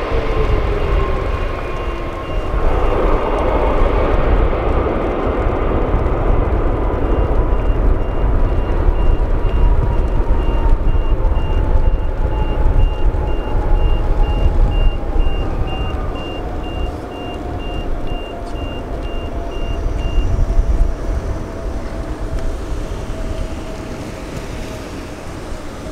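Boeing 777 freighter's twin GE90 turbofan engines running as the jet rolls down the runway in a rejected takeoff test: a steady rumble with a whining fan tone that slowly falls in pitch. A faint high-pitched beeping pulses through the middle stretch.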